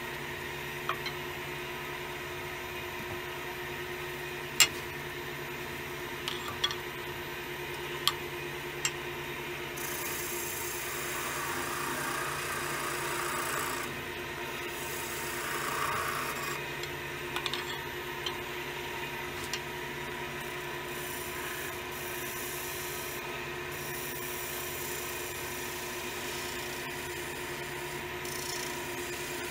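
Wood lathe running with a steady hum while a turning tool cuts and scrapes the spinning willow vase. The cutting hiss grows louder for a few seconds near the middle, with several sharp clicks along the way.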